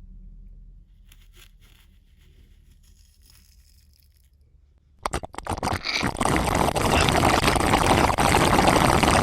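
Loud scraping, crunching noise that starts suddenly about five seconds in, after a stretch of faint low hum.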